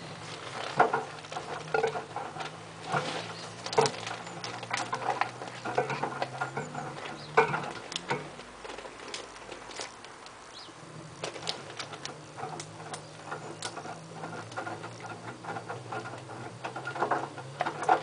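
LG F1222TD direct-drive washing machine tumbling a rinse load slowly: wet laundry and water slosh and patter irregularly against the drum over a low motor hum, which stops for a couple of seconds about halfway through as the drum pauses before turning again.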